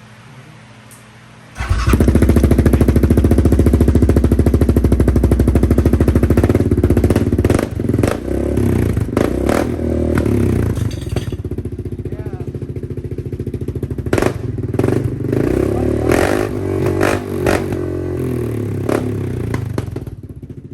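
2022 Yamaha Grizzly 700's single-cylinder four-stroke engine, fitted with an HMF slip-on exhaust, firing up for its first start after the install. It catches about a second and a half in and runs loud and steady for about six seconds, then settles lower and less even, with a few short rises.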